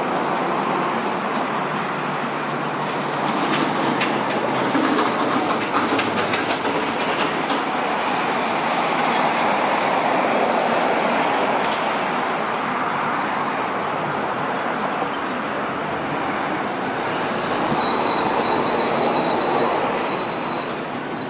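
Hong Kong Light Rail Phase 1 light rail vehicle approaching and pulling in alongside the platform, its wheels running on the rails with scattered clicks. A steady high-pitched tone sets in near the end as it comes alongside.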